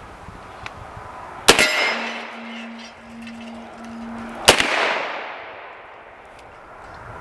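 Two rifle shots from a .458 firing 300-grain full metal jacket rounds, about three seconds apart, each echoing off across the range. After the first, a steel target hit downrange rings with a steady low hum for a couple of seconds.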